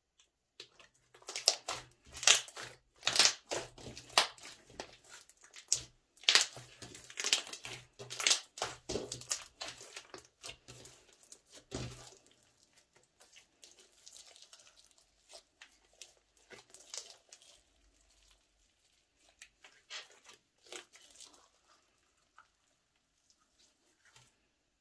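Thick, glossy slime being squeezed, folded and stretched by hand, giving wet crackling pops and squelches as air pockets burst. The pops come thick and loud through the first half, then thin out and go softer.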